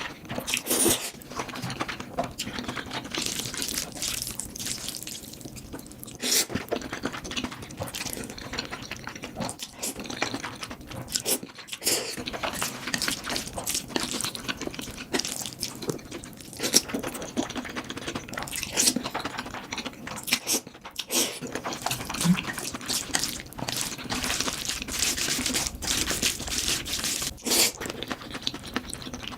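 Close-miked eating of spicy fire noodles: wet slurping, chewing and smacking made up of many short sticky clicks.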